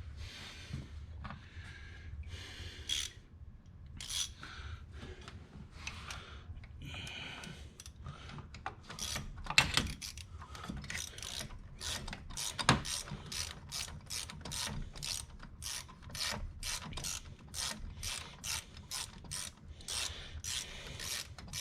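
Hand socket ratchet clicking as the thermostat housing bolts are run down, in uneven strokes at first, then settling into a steady back-and-forth of about two clicks a second.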